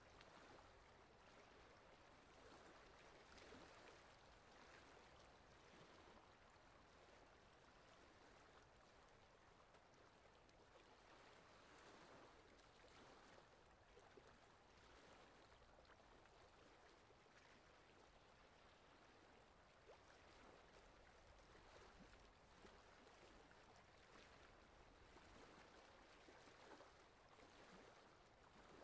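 Near silence: faint outdoor ambience at the water's edge, a soft wash of noise that swells and fades every second or two.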